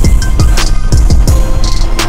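Background music with a heavy electronic beat: deep bass kicks that drop in pitch, about three a second, with hi-hats.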